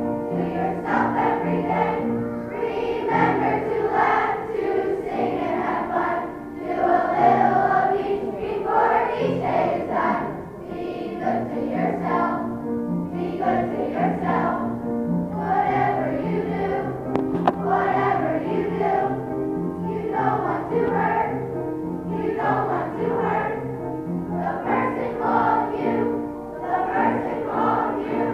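A children's choir singing a song with musical accompaniment, ending near the close.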